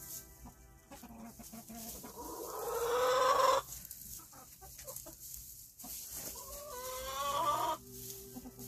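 Rhode Island Red hens calling: a drawn-out call rising in pitch about two seconds in, the loudest sound, and a second shorter rising call near the end.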